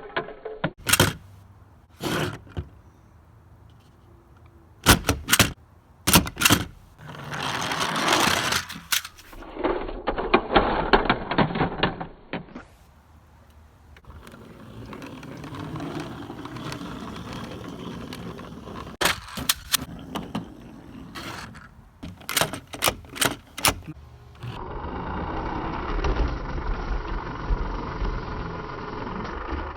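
Toys being handled: clusters of sharp clicks and knocks with stretches of rustling between them.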